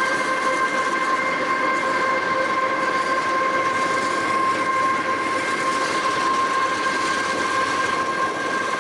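Union Pacific train with two locomotives running past at about 40 mph. A steady, high, eerie whine of several held tones rides over the rushing noise of the wheels, a sound likened to an alien fighter ship.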